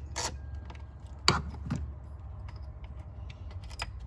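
Scattered clicks and light plastic knocks, one sharper and louder click about a second in, as a mass airflow sensor is handled and worked loose from its plastic intake housing after its Phillips screw is taken out.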